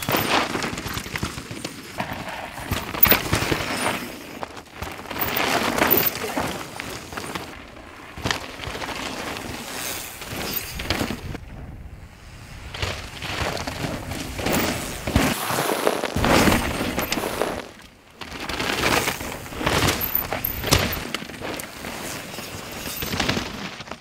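Downhill mountain bikes riding a dirt trail: tyres tearing and skidding through dirt and grass, with sharp hits from landings and the bikes rattling over rough ground, in swells that come and go with brief lulls.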